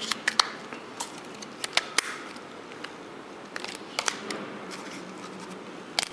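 Sharp clicks and taps of a mobile phone's battery being pressed into place and its back cover fitted and snapped on, a dozen or so separate clicks with clusters near the start, around four seconds in and at the end.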